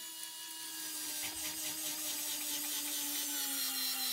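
Amazon Denali cordless powered screwdriver at its maximum torque setting, driving a wood screw through a thin board into a thicker one: a steady motor whine that slowly falls in pitch as the screw bites deeper.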